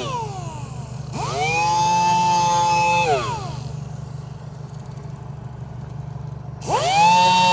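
Power sander with a 320-grit disc whining as it runs. It winds down at the start, spins back up about a second in, and runs steadily for about two seconds. It then winds down again and spins up once more near the end.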